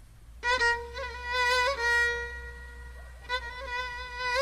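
Violin playing slow, held notes with vibrato, starting about half a second in.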